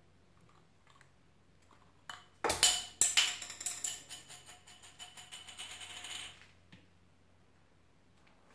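Hard plastic and chrome faucet parts clicking and rattling as a flexible faucet spout is twisted into the faucet body. It starts sharply about two seconds in, with quicker, fainter clicks that stop after about four seconds.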